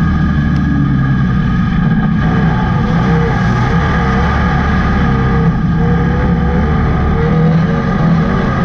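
Dirt-track race car's engine heard from inside the cockpit, running loud and fairly steady with a deep rumble and no hard revving.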